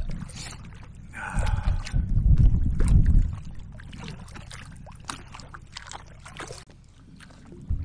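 Wind buffeting the microphone in a low rumble for about two seconds, over water slapping and splashing around a kayak being paddled through choppy water, with scattered small splashes.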